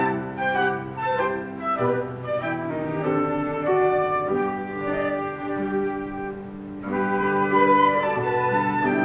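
An ensemble of five flutes with piano playing a melodic classical arrangement in held, overlapping notes. It softens about six seconds in, then swells again a second later.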